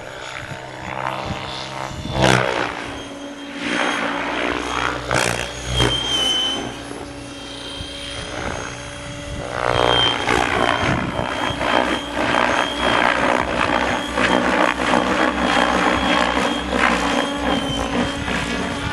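Electric Mikado Logo 600 XL model helicopter in flight: rotor blade chop and swish that swells and fades and shifts pitch as it manoeuvres, louder and denser from about halfway through.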